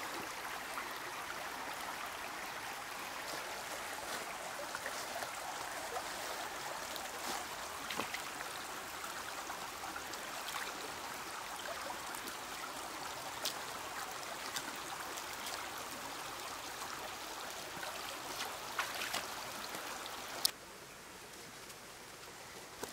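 Shallow rocky creek running, a steady trickling rush of water over stones, with a few faint clicks. The water sound cuts off suddenly near the end, leaving a quieter background.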